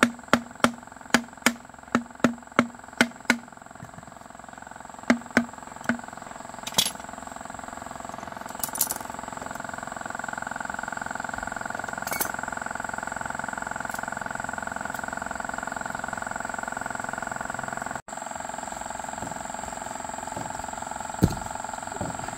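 Hammering on metal, a quick run of uneven knocks with a ringing note, then a steady hum from a small electric motor running.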